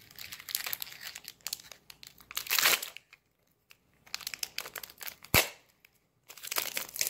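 Foil wrapper of a Pokémon trading card booster pack crinkling as it is torn open and the cards are pulled out, with a louder rustle about two and a half seconds in. A single sharp knock about five seconds in.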